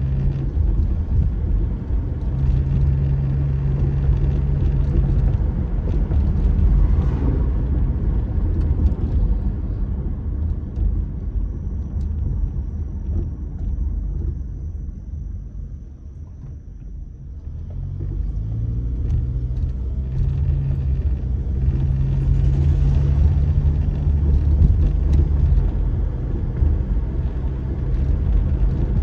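Car engine and road noise heard from inside the cabin while driving, a steady low rumble. It dies down for a few seconds about halfway through, then the engine note climbs as the car speeds up again.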